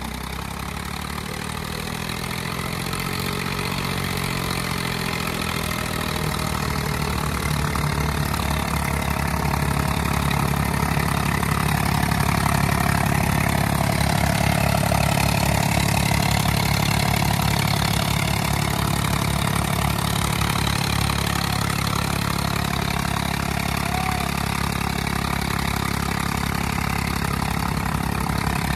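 Tractor diesel engines working hard under heavy load in a tug-of-war pull. The engine note climbs over the first few seconds, grows louder, then holds a steady laboring drone.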